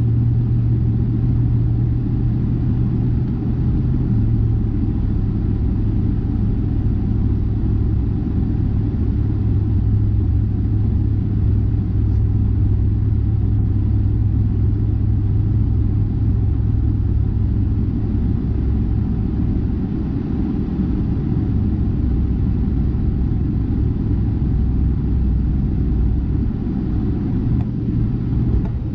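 A car driving at steady speed: a continuous low engine and road drone with a strong low hum, without change.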